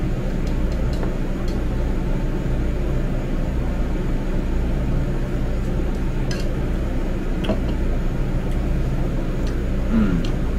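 Steady low mechanical hum, with a few light clinks of a spoon against a bowl.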